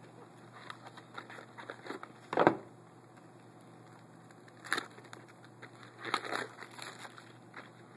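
Trading-card packaging opened by hand: a cardboard box handled and its plastic wrapper torn open, heard as a few short crinkling rips. The loudest is about two and a half seconds in, with others near five and six seconds.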